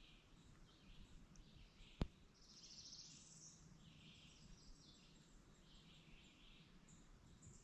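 Faint songbird calls in the woods, short chirps repeating about every second with a brief trill about three seconds in. A single sharp click about two seconds in is the loudest sound.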